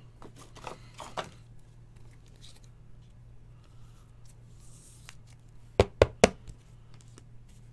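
Trading cards and a hard plastic card holder being handled on a table: faint rustling and light clicks, then three sharp plastic clacks in quick succession about six seconds in.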